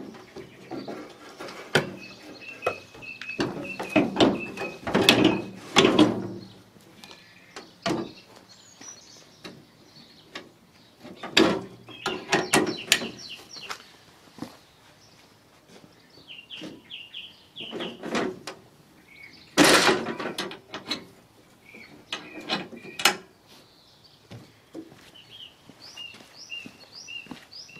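Irregular clunks, knocks and rattles of the Countax powered grass collector and its parts being handled and set back in place on the ride-on tractor, loudest twice, a few seconds in and again near two-thirds of the way through. Birds chirp faintly between the knocks.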